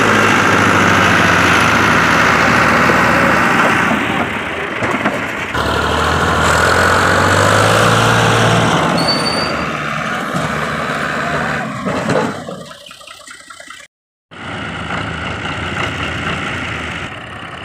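Fiat 480 tractor's diesel engine working hard, hauling a soil-laden trolley up a sandy bank, easing briefly and then pulling again. About two-thirds of the way through it dies away, the sound breaks off for a moment, and quieter engine running follows.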